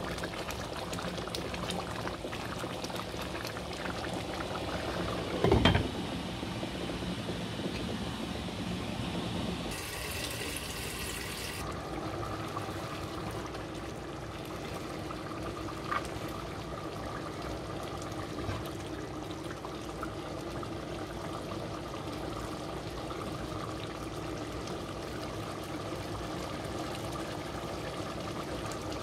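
Thick chana dal simmering and bubbling in a pot, with a steady hum underneath. There is one loud knock about six seconds in, and later wet sloshing as the dal is ladled out.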